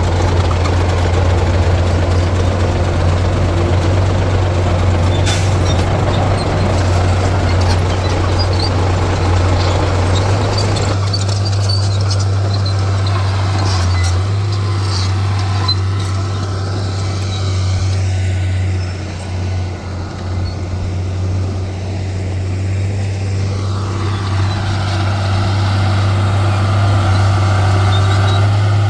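Heavy diesel earthmoving machine running with a steady deep drone. The rattle and hiss above it drop away about eleven seconds in, and a higher tone joins near the end.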